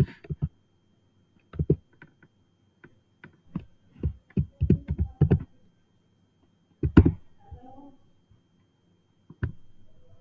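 Computer keyboard keystrokes as a password is typed: a loose run of about a dozen key presses over a few seconds, then a louder single keystroke about seven seconds in and another near the end.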